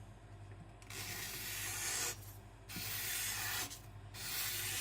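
Chinese cleaver slicing through paper: three hissing cuts, each about a second long.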